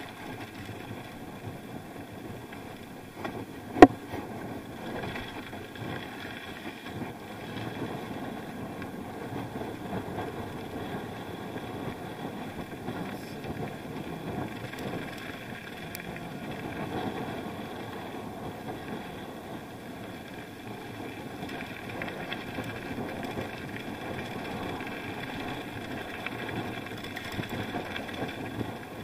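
Steady on-board noise of a bike being ridden, an even rushing din, with one sharp knock about four seconds in.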